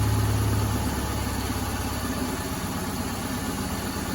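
Subaru engine idling roughly with a misfire, which turns out to come from a bad ignition coil. The low hum is loudest at the start and eases about a second in.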